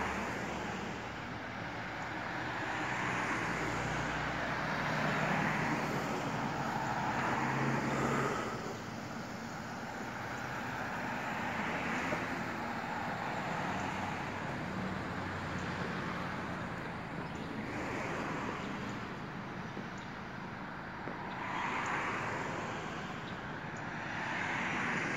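Road traffic: cars passing one after another on a two-lane road, their tyre and engine noise swelling and fading every few seconds.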